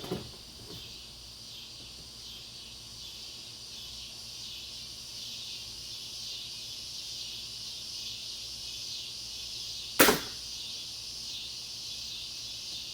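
Barnett Recruit crossbow firing once: a single sharp snap about ten seconds in. A steady insect chorus chirrs throughout.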